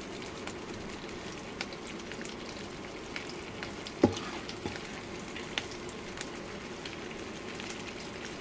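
Zucchini boats frying in melted butter in a stainless steel skillet: a steady sizzle with many small crackles. A fork knocks against the pan once, about four seconds in.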